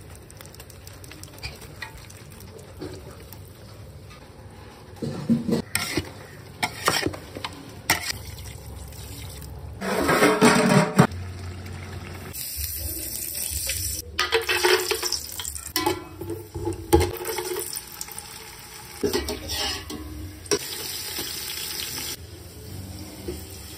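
Cooking sounds in a steel pot: knocks and scraping as beef is mixed into the spices, then stretches of hissing sizzle as food cooks in hot oil.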